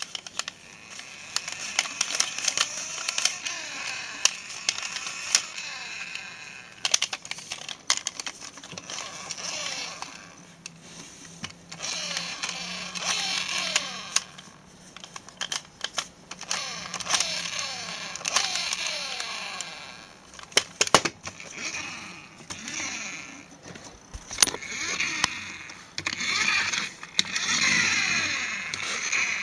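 Flywheel-driven toy stunt car whirring in repeated bursts as its wheels are spun up, the whir sliding down in pitch as the flywheel runs down each time. Sharp plastic clicks and knocks come in between.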